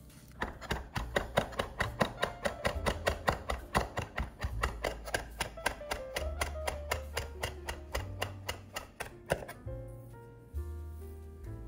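Kitchen knife chopping quickly on a cutting board, about four or five even strokes a second, stopping near the end, over background music.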